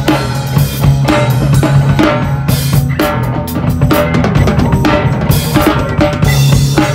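Rock drum kit played fast and hard, with rapid snare, bass drum and cymbal hits, over sustained chords from an electric guitar.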